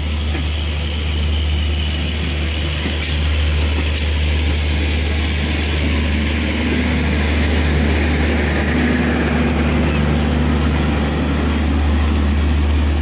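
Intercity passenger train passing close by: the coaches roll past with a steady, loud rumble and rattle, and the diesel generator power car comes by near the end.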